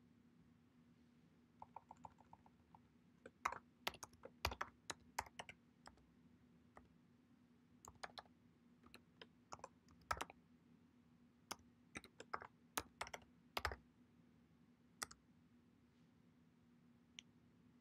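Typing on a computer keyboard: irregular runs of sharp key clicks, with a quick run of lighter clicks about two seconds in, over a faint steady low hum.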